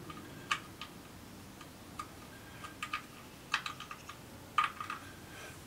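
Light metallic clicks and clinks of a small metal hand tool against the engine block, about a dozen irregular ticks, some with a brief ring, the loudest near the middle and shortly before the end.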